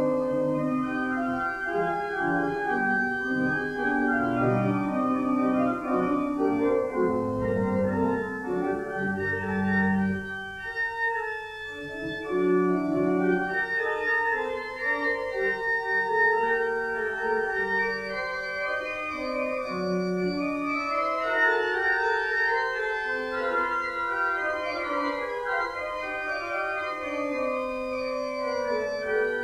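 Organ music: a hymn tune played in held chords, with no singing.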